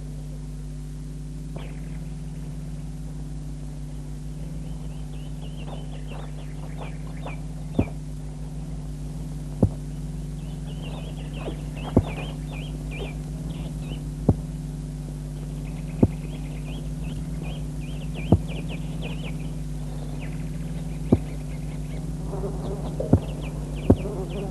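A steady electrical hum on an old film soundtrack, with clusters of short high chirps like small birds. Sharp clicks come roughly every two seconds and are the loudest sounds.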